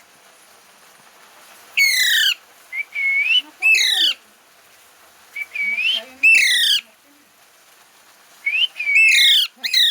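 Indian ringneck parrot screeching: four loud, harsh, falling calls a couple of seconds apart, each led in by a shorter, softer rising call.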